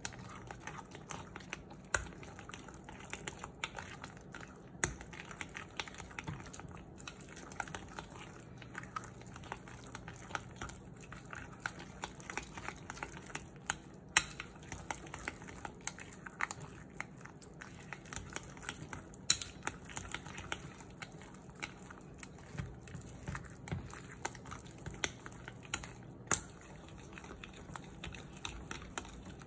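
Plastic chopsticks beating thick pancake batter in a glass mixing bowl: rapid, irregular clicking and tapping against the glass with soft wet stirring, and a few sharper knocks now and then.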